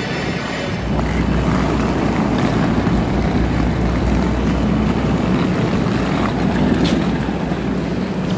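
A vehicle's steady low rumble with a haze of running noise, growing a little louder about a second in.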